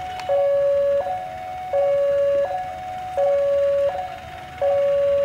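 Railway level-crossing warning alarm sounding a repeating two-tone electronic signal, a lower and a higher note alternating about every three quarters of a second, the warning that a train is approaching. A single sharp click comes just after the start.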